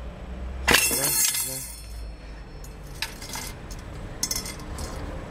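Metal parts of a Ford E4OD automatic transmission clinking and clattering against each other and the case as they are handled and set in place. The loudest clatter comes about a second in, followed by a few lighter taps.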